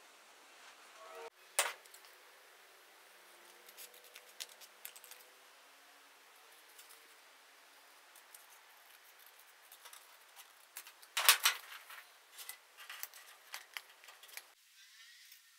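Scissors snipping a paper pattern in a series of small cuts, the loudest cluster about eleven seconds in, with a single sharp click about a second and a half in.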